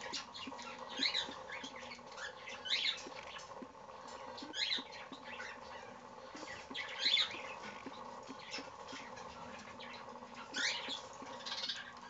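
Cockatiel giving about six short, harsh, raspy squawks, spaced a second or more apart, over a faint steady hum.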